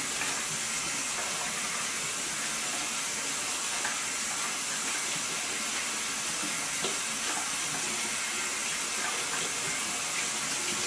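Bathroom sink faucet running steadily as a synthetic shaving brush and a hand are rinsed under the stream, water splashing into the basin.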